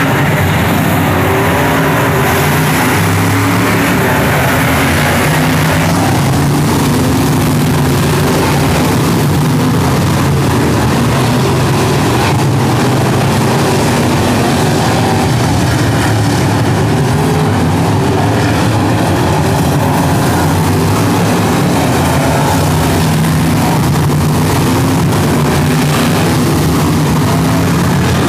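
Figure-eight race cars' engines running and revving together, a loud, constant din with the engine notes shifting up and down.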